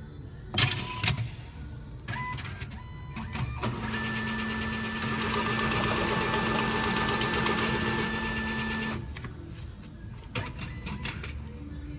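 Bank cash-deposit machine taking in and processing banknotes. A few clicks and clunks come first, then a steady motor whirr with a constant hum runs for about five seconds and cuts off sharply, with more clicks after it.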